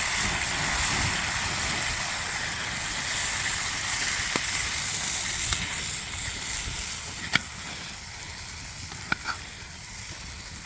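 Wallaby meat and korma curry sauce sizzling in a hot pan, with a few sharp clicks of a utensil against it. The sizzle starts abruptly and eases off after about seven seconds as the sauce settles to cook down.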